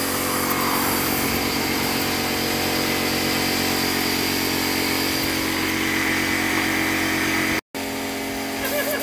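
Compressed-air paint spray gun hissing steadily as it sprays clear finish, over a steady motor hum. The sound drops out for an instant near the end.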